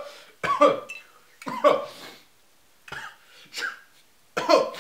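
Four short, wordless coughing and throat sounds from a young man, reacting to the burn of ghost pepper sea salt he has just eaten.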